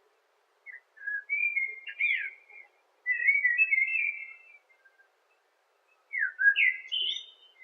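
Bird-like whistled song in three short phrases, each a quick run of clear notes and pitch slides.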